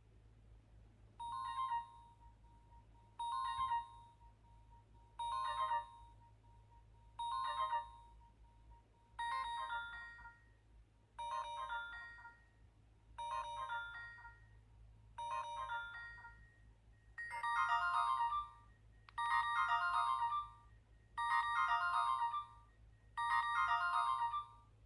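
Nokia 130 mobile phone playing one of its built-in ringtones: a short electronic melody phrase repeated about every two seconds, becoming louder and fuller in its last four repeats.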